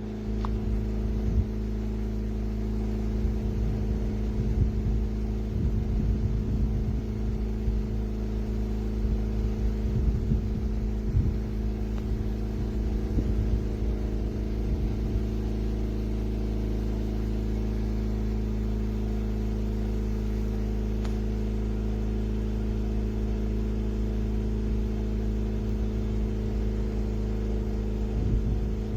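Portable generator engine running steadily, a constant hum, with uneven low rumble in the first half.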